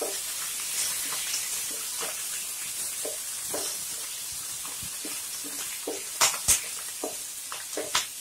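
Tadka of cumin, mustard seeds, dals, cashews and curry leaves sizzling in hot ghee and oil in a nonstick pan. A wooden spatula stirs it, scraping and tapping the pan, with two louder knocks a little after six seconds in.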